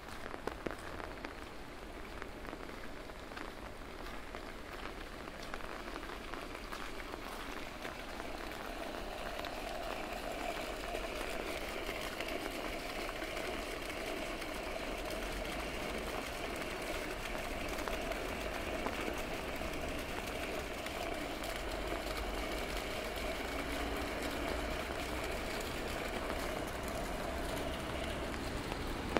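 Rain falling steadily on a city street, with fine patter throughout. About eight seconds in, a vehicle's steady hum with a whine in it rises beneath the rain and holds.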